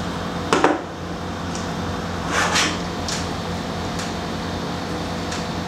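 A film clapperboard snapped shut once, about half a second in, marking the take. After it, a steady low room hum with a few faint rustles.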